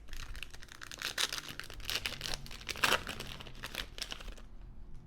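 A trading-card pack's wrapper crinkling as it is torn open and pulled off the cards. The crackling lasts about four seconds, loudest near three seconds in, then stops.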